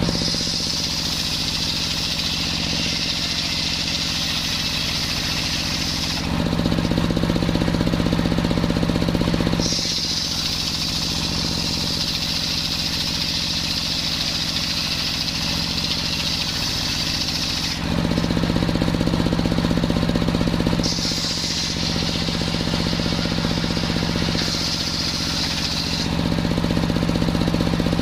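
Engine-driven circular sawmill running steadily as it saws a coconut log. A high blade whine comes and goes in four stretches, the longest about eight seconds, as the blade cuts the wood. Between these stretches the engine's drone is louder.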